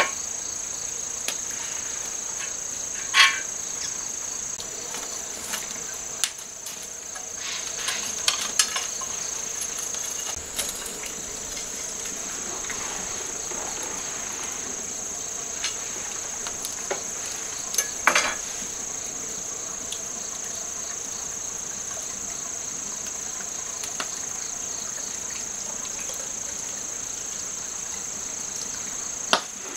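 Crickets trilling steadily and high-pitched, with a few sharp clicks and knocks from around the burning wood fire, loudest about 3 s in and about 18 s in.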